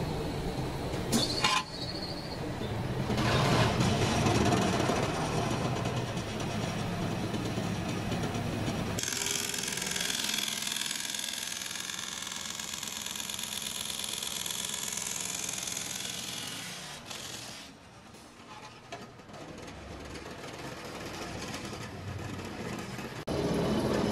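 Machinery running in a plastic pipe factory: a steady mechanical noise that changes abruptly twice.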